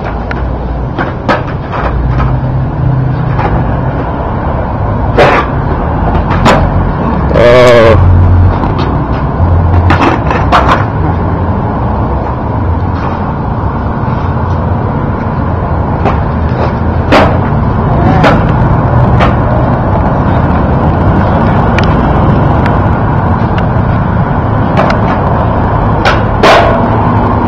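Skateboard popping, flipping and landing on concrete during flatland tricks: scattered sharp knocks and clacks of the deck, tail and wheels on the ground, over the steady noise of road traffic.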